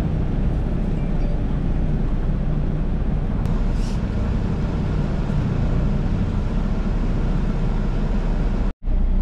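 Semi truck's diesel engine running with a steady low drone, heard from inside the cab while rolling slowly. A brief high hiss comes about four seconds in, and the sound drops out for an instant near the end.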